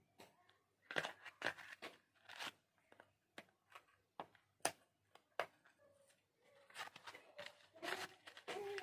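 A cardboard cookie box being opened by hand: a scattering of short, sharp rips and clicks as the end flap is pried and torn open, then denser crinkling and rustling near the end as the inner packet is drawn out.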